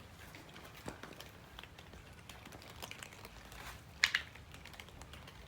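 A cat eating, heard close by: small irregular clicks and crunches of chewing, with one louder sharp crackle about four seconds in.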